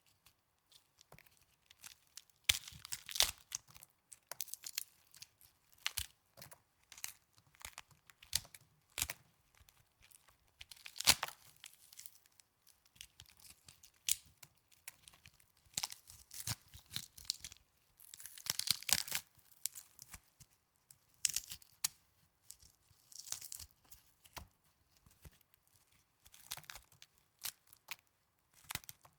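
Snow squeezed and crunched close to the microphone: irregular crisp crackling crunches with short pauses between, a few of them much louder than the rest.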